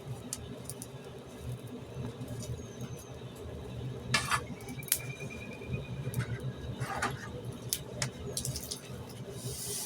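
Coal forge fire burning, with a steady low rumble and scattered sharp crackles and clinks as the coal is burned down to coke.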